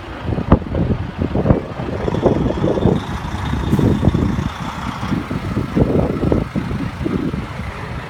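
Diesel engine of a Mack prime mover running as the truck drives slowly past, a deep uneven rumble that surges a few times.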